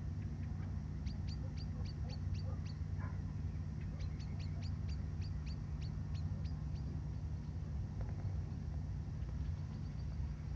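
A bird calls in two runs of short, high chirps, about four a second, the second run longer, with a few faint chirps near the end. Under it runs a steady low rumble.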